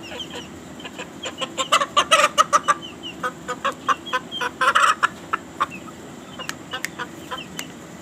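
Aseel chickens clucking in a run of short, sharp calls, with louder, denser bursts about two seconds in and again around five seconds.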